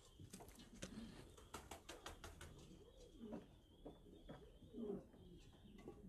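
Fancy pigeons cooing faintly, with low warbling coos about three seconds in and again, louder, near five seconds. A quick run of clicks and rustles comes in the first couple of seconds.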